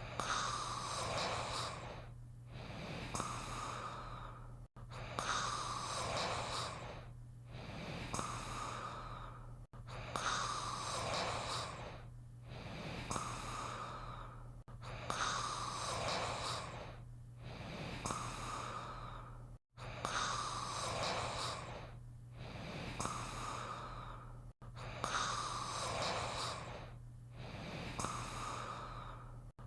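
Cartoon character snoring: a snoring breath in, then a long breath out, repeated about every five seconds with a tiny break between cycles, over a steady low hum.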